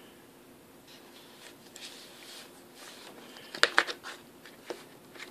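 An iPad being handled and fitted into a leather keyboard case: faint rubbing and scraping, then a quick cluster of sharp clicks and knocks about three and a half seconds in as it is pressed into the case's holder, and one more click shortly after.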